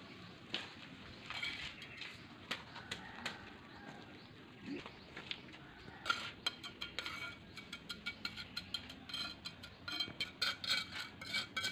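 Light, quick clicks and clinks, a few scattered at first, then coming thick and fast from about halfway through, some with a short ring.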